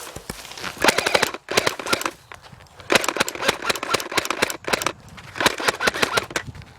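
Airsoft electric rifles firing fully automatic, in three rapid bursts of clicking shots, about a second in, around the middle and near the end.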